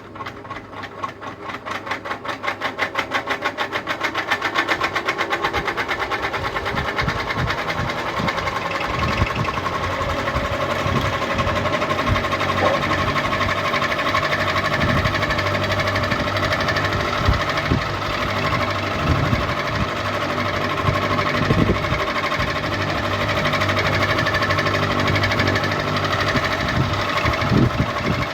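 Ceiling fan spinning up: a rhythmic beat that quickens and grows louder over the first few seconds, then settles into a steady whir with a held hum and irregular low knocks.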